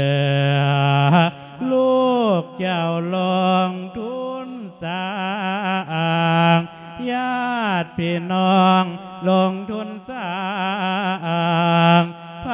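A Thai Buddhist monk singing a thet lae, the melodic chanted sermon in Isan style, into a microphone: one voice in long sung phrases whose pitch bends and wavers, with short breaks for breath between them.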